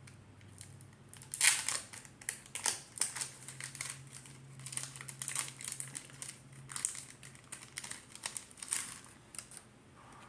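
A plastic Pokémon card booster pack wrapper being torn open and crinkled by hand, in irregular crackling bursts, the loudest about a second and a half in.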